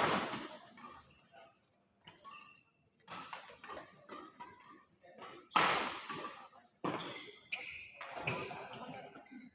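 Badminton rackets hitting a shuttlecock during a doubles rally: a sharp, loud hit at the start and another about five and a half seconds in, with lighter knocks a few seconds later and faint voices between.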